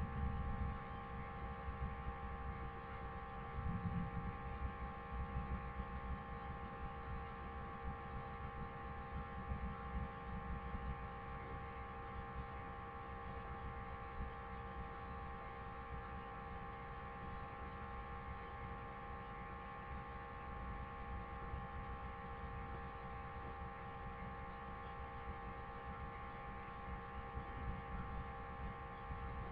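Steady electrical hum made of several even, high tones, over a low rumble that fades out about ten seconds in.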